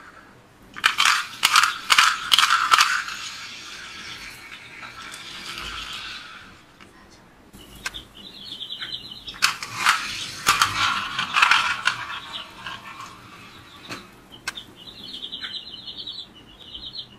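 Toy pull-back car being wound: rapid ratcheting clicks from its spring motor as the wheels are rolled back against the floor, then a whirr that fades as it is let go and runs off. This happens twice.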